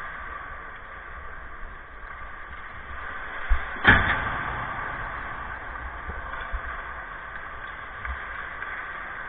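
A sharp knock, then at once a louder bang that rings briefly, about four seconds in, over a steady background hiss; a couple of faint knocks follow later.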